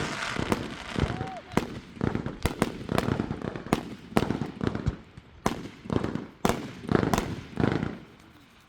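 Fireworks going off: a rapid, irregular string of sharp bangs and pops, with a low rumble between them. It dies down near the end.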